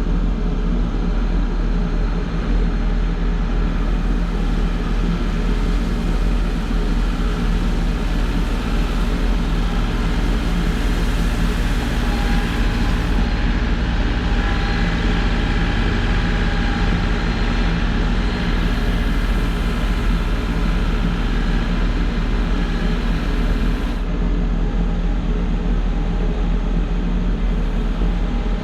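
A large engine running steadily at a constant speed, with a high hiss over it that rises and falls a few times and drops away near the end.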